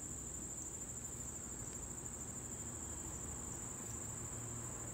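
Outdoor insect chorus: a steady, high, finely pulsing trill.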